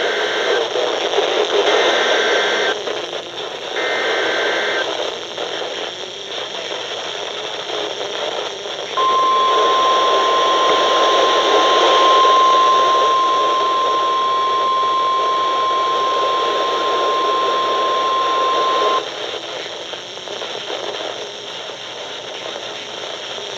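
Emergency Alert System signal on NOAA Weather Radio, received with constant radio static: three short bursts of warbling two-pitch SAME header data, about a second each and a second apart, encoding a Severe Thunderstorm Warning. After a pause, the warning alarm tone comes in about nine seconds in and holds one steady pitch for about ten seconds, then stops, leaving only the static.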